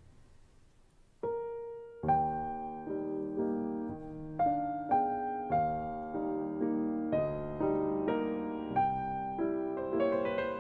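Background piano music: a single note about a second in, then slow chords struck and left to ring.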